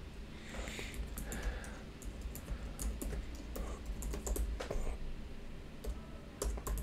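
Computer keyboard typing: a run of irregular keystrokes as a username and then a password are entered, with a few sharper key clicks near the end.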